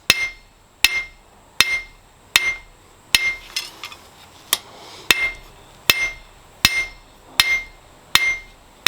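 Hand hammer striking hot steel on an anvil while forging a small dagger blade: a steady run of about a dozen blows, roughly one every three-quarters of a second, each with a short metallic ring.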